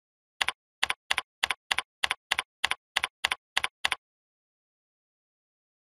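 Typing on a computer keyboard: about a dozen keystrokes at roughly three a second, each a quick double click, stopping about four seconds in.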